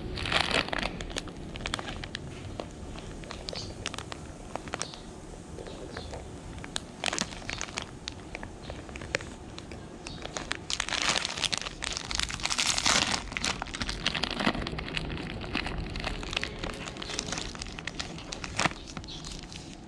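A Baby Ruth candy bar wrapper being handled, with irregular crinkling and crackling. The heaviest crinkling comes about half a second in and again from about eleven to thirteen seconds in.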